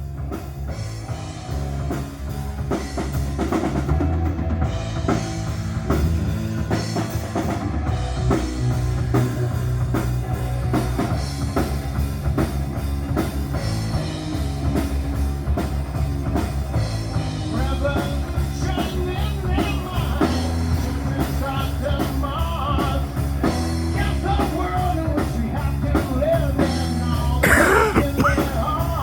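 Rock band playing, with a drum kit keeping a steady beat over heavy bass. A gliding melodic line comes in over it from about two-thirds of the way through.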